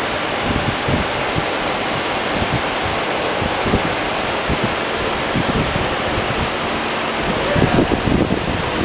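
Steady rush of aquarium water churning and bubbling at the surface, with occasional soft low thumps.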